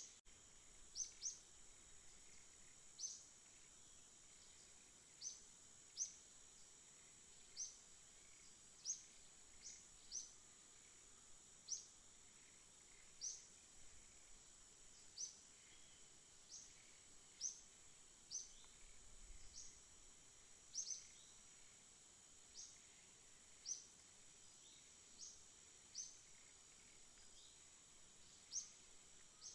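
A bird chirping: short, high single chirps repeated irregularly, about one a second, over a steady high-pitched drone.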